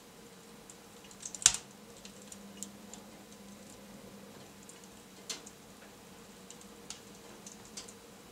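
Wood fire crackling in a fireplace: scattered sharp pops and clicks, the loudest about one and a half seconds in and another about five seconds in, over a faint steady background.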